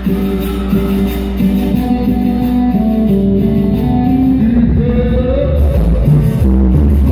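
Loud cumbia dance music played over a DJ sound system, with singing and guitar, the bass growing heavier about four and a half seconds in.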